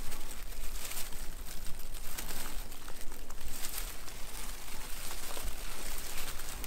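Leaves and twigs of low bilberry shrubs rustling and crackling irregularly as hands pick berries from them.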